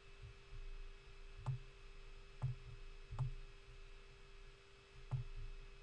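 Computer mouse clicking four times at uneven intervals, each a soft click with a low thud, over a faint steady hum.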